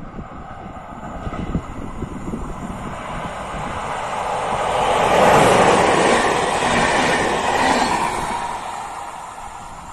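SU42-class diesel locomotive (SU4210-003) passing with a train of Intercity passenger coaches: engine and wheel-on-rail noise build to a peak about halfway through, then fade as the coaches roll away.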